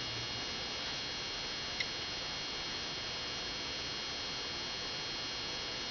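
Steady background hiss with a thin, high electronic whine made of several constant tones, and one faint tick about two seconds in.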